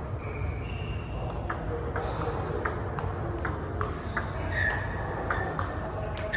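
Table tennis ball being hit with a paddle and bouncing on the table in a steady rally. It makes sharp clicks about two to three times a second, starting about a second and a half in.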